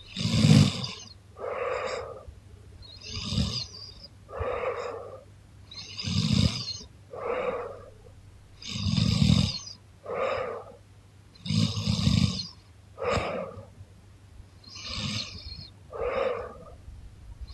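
A sleeping woman snoring in a steady rhythm, about one breath every three seconds. Each breath has a louder snoring pull followed about a second later by a softer, raspy breath.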